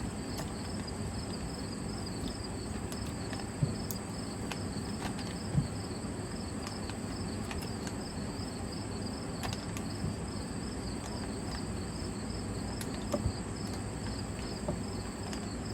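Insects chirping steadily in a regular pulsing rhythm over a constant high buzz, with a low rumble underneath. A few light knocks from handling, about four and six seconds in and again near thirteen seconds.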